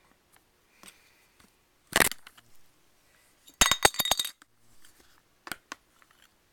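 Hard clinks and a rattling clatter of small metal on a hard surface: one sharp clink about two seconds in, a quick run of several hits around four seconds, then two lighter clicks.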